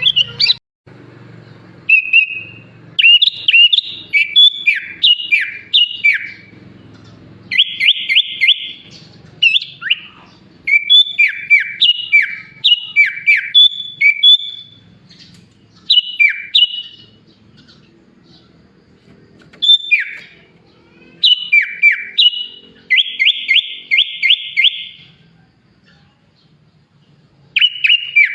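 Sooty-headed bulbul (kutilang) singing vigorously in bursts of loud whistled phrases, with quick downward-sweeping notes and two fast trills, broken by short pauses. Its song mixes in imitations of other birds' songs.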